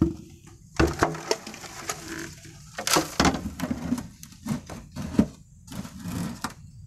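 Irregular rustling and crackling, with several loud sharp cracks scattered through it.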